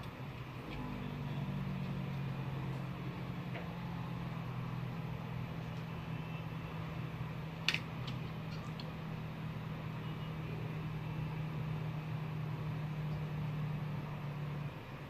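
A small electric motor or fan on a repair bench hums steadily. It starts just under a second in and stops shortly before the end, with one sharp click about halfway through.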